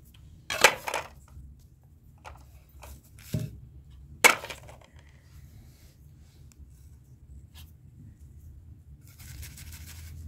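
Handling noises from a plastic bowl on a cloth-covered surface: a quick cluster of knocks and clatters about half a second in, a dull thump a little after three seconds and one sharp knock just after four seconds, over a low steady rumble.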